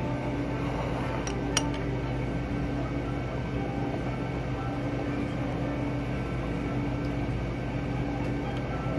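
Steady machine hum of the room with several constant tones, and one sharp clink of tableware about one and a half seconds in.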